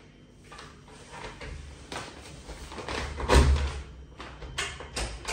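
A wooden front door's lock and handle being worked before it opens: a string of clicks and rattles, with one heavy thump about three and a half seconds in.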